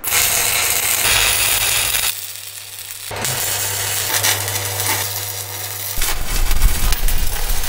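Stick welder's arc crackling and sizzling as steel flat bar and pipe are welded, over a low steady hum. The sound changes abruptly a few times, at about 2, 3 and 6 seconds in.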